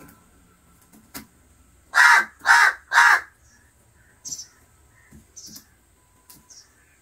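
House crow cawing three times in quick succession, about half a second apart, followed by a few faint short taps.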